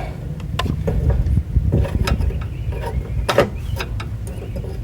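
Irregular metallic clicks and knocks of hand tools working at a stubborn brake hose retaining clip, over a steady low rumble.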